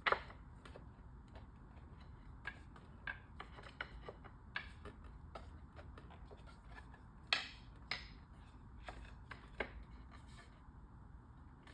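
Irregular light clicks and knocks of playpen parts being worked together by hand, as dowels are eased into a post's holes. The sharpest knocks come right at the start and about seven seconds in.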